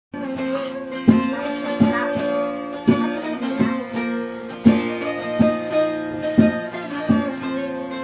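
Bağlama (long-necked Turkish saz) played solo: a plucked melody over ringing drone strings, with a sharp accented stroke roughly once a second.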